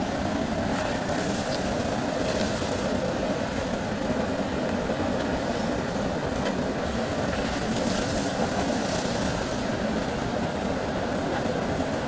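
Diesel engine of a JCB backhoe loader running steadily while it works the backhoe arm and bucket, digging and swinging, with faint hissy streaks now and then.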